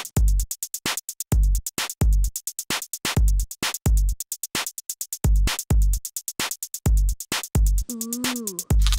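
Background music: a steady drum-machine beat with repeated low kick thumps and fast, even hi-hat ticks.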